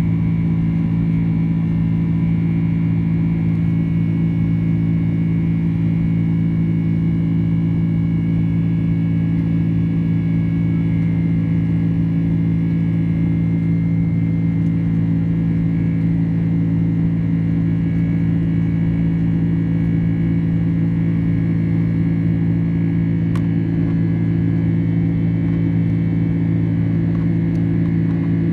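Boeing 767-300ER jet engines heard from inside the cabin while the airliner climbs after takeoff: a steady, even drone with a deep hum and a faint higher whine over it.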